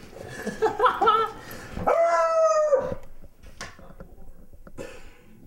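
Beagle giving a few short yelps, then one long bay about two seconds in that falls away at its end. It is excited at its people coming home after a day away.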